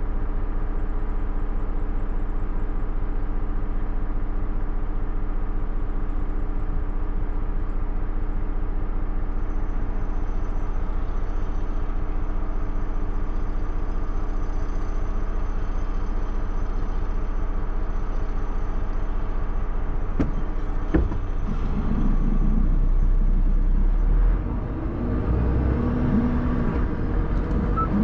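A car driving at speed on a motorway: steady road and wind noise with a faint engine hum. About 21 seconds in there is a short click, and from about 22 seconds the noise turns louder and deeper.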